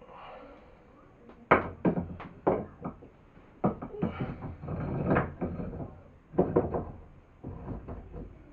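Knocks and clunks of wooden and metal vise parts being handled and fitted together while a wood bench vise is mounted. The sharp strikes come in three bunches: about a second and a half in, around four to five seconds, and again near six and a half seconds.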